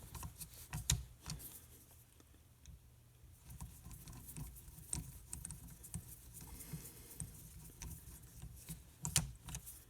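Screwdriver running cam cover screws down into a 1939 Harley-Davidson ULH engine case: irregular small metallic clicks, ticks and scrapes, with a sharper click about a second in and another near the end.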